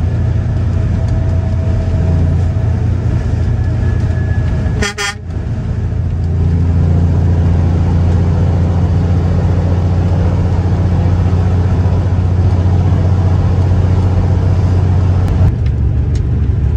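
Semi truck's diesel engine droning steadily, heard from inside the cab while driving. The drone breaks off briefly about five seconds in, then comes back a little louder.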